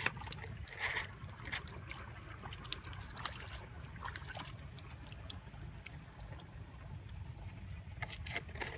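Shallow water being splashed and sloshed, with scattered small splashes, drips and clicks over a steady low rumble.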